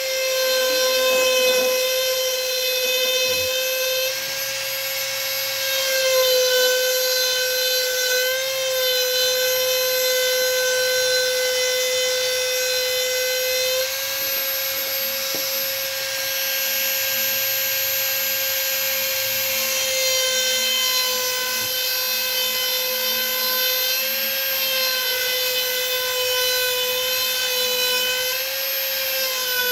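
Dremel rotary tool running at high speed with a steady high whine as its bit grinds plunge cuts into pine. The pitch dips slightly several times as the bit bears into the wood.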